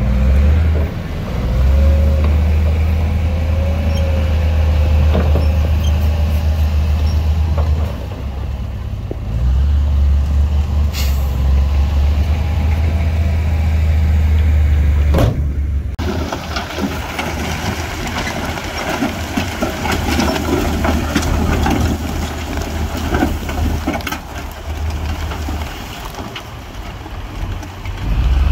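Heavy diesel construction machinery running: a deep, steady engine drone for about the first fifteen seconds, with a brief hiss about eleven seconds in. It then changes abruptly to a rougher sound full of rattling and small clattering knocks.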